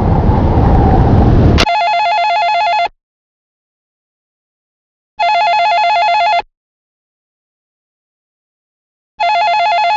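A loud rumbling noise cuts off abruptly, then a telephone rings three times, each ring a warbling electronic double tone about a second long. The phone is ringing with an incoming automated tornado-warning call.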